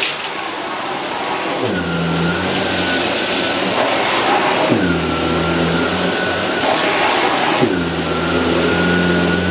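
Electrolux UltraFlex bagless canister vacuum running while it picks up dust and rice, a steady motor hum and high whine over a rushing of air. The hum and whine break off and come back about every three seconds.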